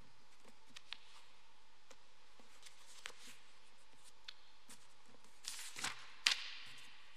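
Quiet church room tone with scattered faint clicks and small handling noises, then a louder rustle and one sharp click near the end.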